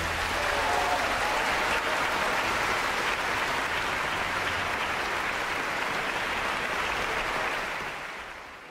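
Audience applauding in a concert hall, a steady clapping that fades out near the end.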